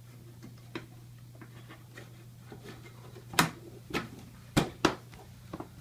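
Sharp plastic clicks and taps as a device's large access panel is fitted and its small screws handled, about half a dozen separate clicks, the loudest a little past the middle.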